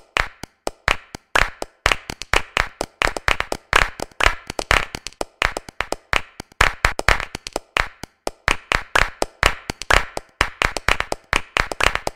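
Fast rhythmic hand clapping in repeating groups, several claps a second with no pause, a percussion-only music track.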